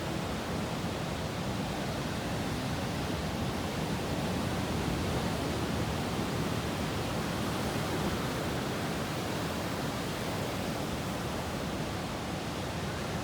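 Steady, even wash of ocean surf breaking, with no single wave standing out.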